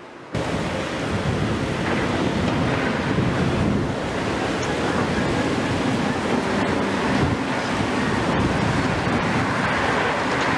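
Steady rumbling noise of Cat and Liebherr demolition excavators working among rubble, mixed with wind buffeting the microphone. It starts abruptly just after the beginning.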